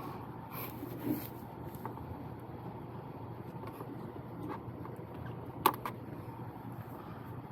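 Small clicks and taps from handling an e-bike brake cable as it is threaded through the frame, over a steady low background hum. One sharp click about five and a half seconds in is the loudest sound.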